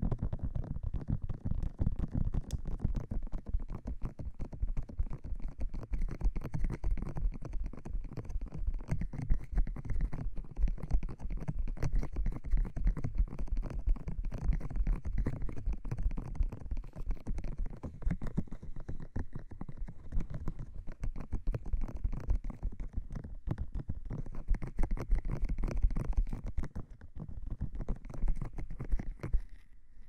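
Fast tapping of fingertips and hands on the silicone ears of a binaural microphone: a dense, rapid stream of muffled low taps right at the mic.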